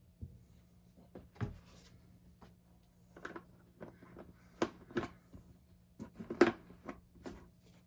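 A scatter of light knocks, clicks and rustles as small objects are picked up and set down, with a few sharper knocks about a second and a half in and again between four and seven seconds.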